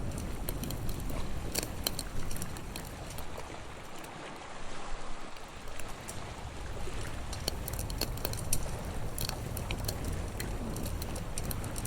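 Campfire crackling with irregular sharp pops, over a steady low rush of sea waves that eases for a moment about four seconds in.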